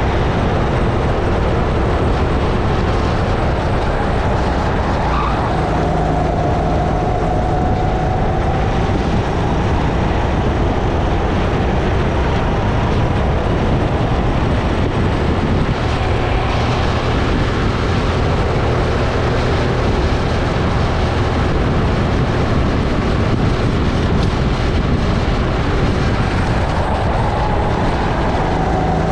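Sodi RX-8 270cc four-stroke kart engine running hard around the track, its pitch rising and falling with the throttle, under a steady rush of noise on the helmet-mounted microphone.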